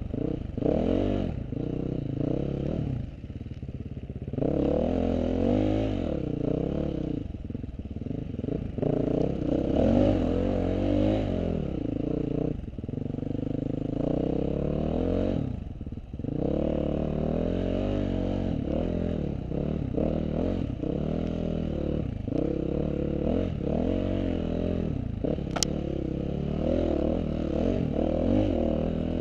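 KTM off-road motorcycle engine being ridden hard, revving up and down over and over, its pitch rising and falling with the throttle and briefly dropping off several times. One sharp click sounds near the end.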